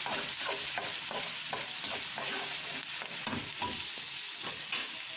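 Sliced onions frying in hot oil, sizzling steadily as they are stirred, with short scrapes of the stirring utensil against the pan two or three times a second.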